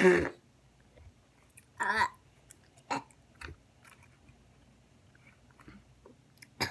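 A child's short, separate mouth noises while chewing and sucking at the straw of a foil drink pouch. The loudest comes right at the start, with others about two and three seconds in and one near the end.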